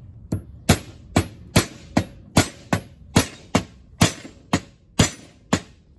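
Hammer striking a steel pin punch, driving a roll pin into a differential carrier: a steady run of sharp metallic blows, about two to three a second, each with a short ring.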